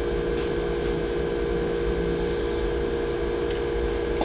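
Steady machine hum made of several close, level tones, with a low rumble underneath.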